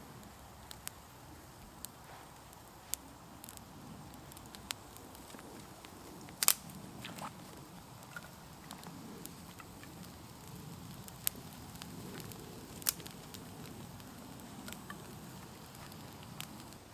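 Small campfire of dry twigs burning and crackling, with a soft low rush of flame under a dozen or so sharp, scattered pops; the loudest pop comes about six and a half seconds in.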